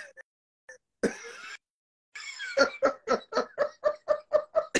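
A man laughing hard: a short breathy burst about a second in, then a quick, even run of 'ha-ha' pulses, about five a second.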